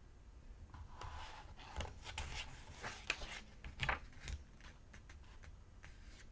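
Paper pages being turned and flipped through by hand: a run of quick rustles and crisp flicks, busiest in the first few seconds, then a few lighter flicks near the end.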